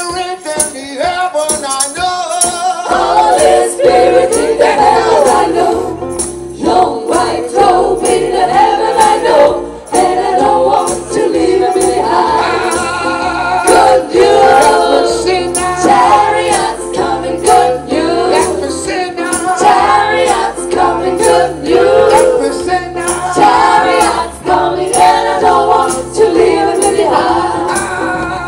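A live gospel choir singing together in harmony, with a tambourine keeping a steady beat.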